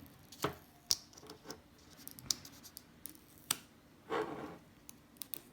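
Hands unwrapping and opening an iPhone 12's packaging: scattered light clicks and scrapes of cardboard and plastic being handled, with a short rustle about four seconds in.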